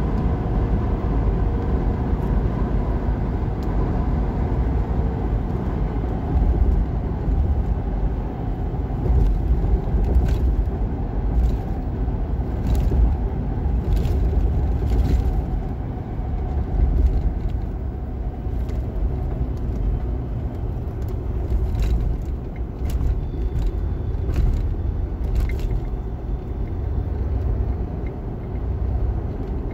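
Steady in-cabin road noise of a car driving at speed: a low rumble of tyres and engine. Light ticks sound now and then through the middle stretch.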